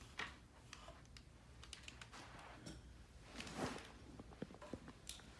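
Hard plastic LEGO pieces of a Voltron model clicking and knocking as the model is handled and transformed: a run of small, scattered clicks with a louder rustling clatter about three and a half seconds in.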